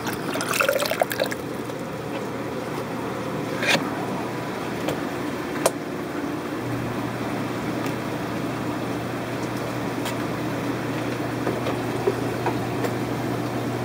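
Steady trickling and splashing of water circulating through aquarium tanks, with a low steady hum coming in about seven seconds in and a couple of light clicks.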